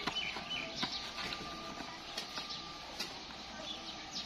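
Hand rubbing spice paste into a raw chicken piece in a plastic bowl: faint, scattered squishing and scraping.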